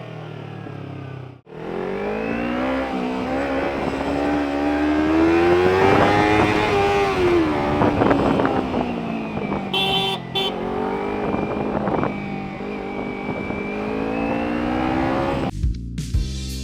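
Kawasaki Ninja 300's parallel-twin engine through an Arrow exhaust, pulling away and accelerating. Its pitch climbs, falls with a shift and then holds fairly steady. Near the end it cuts to background music with a beat.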